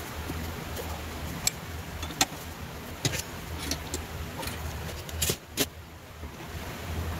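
Scattered sharp metallic clicks and knocks as a wood lathe's chuck, tailstock and tool rest are handled and tightened by hand, with the lathe stopped, over a low steady background hum.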